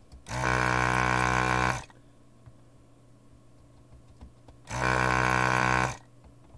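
Desoldering gun's built-in vacuum pump switched on twice, each time a steady droning buzz lasting just over a second, sucking molten solder out of circuit-board joints.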